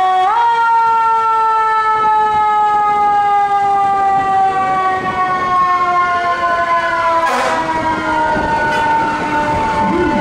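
Fire truck siren sounding one long wail that rises sharply at the start, then slowly falls in pitch throughout. Near the end a second siren starts a fast up-and-down warble.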